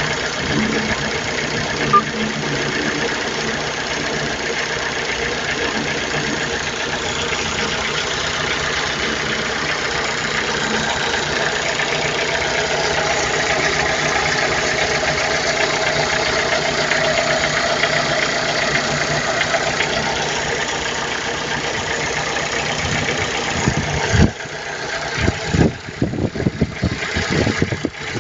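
Chevrolet Celta's 1.0 VHC four-cylinder engine running steadily at idle, with the abnormal noise its owner is showing. Near the end the sound turns uneven, in loud irregular pulses.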